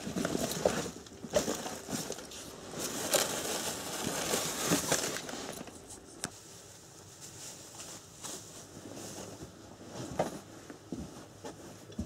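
Crackling and rustling as a piece of bread is broken off by hand, with scattered clicks; busiest in the first five seconds, then fainter.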